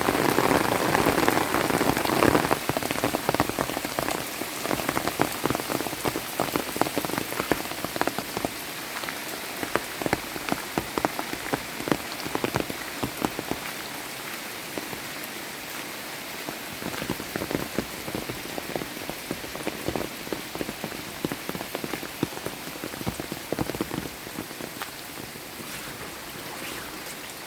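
Rain falling, with many separate drops striking close by. It is heaviest at the start, then eases and grows steadily quieter as the shower thins.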